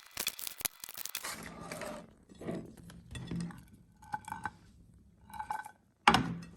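A meat grinder working on mini ice creams: clicks, clinks, scraping and crunching in short separate bursts, two of them with a brief squeak, and a sharp knock near the end.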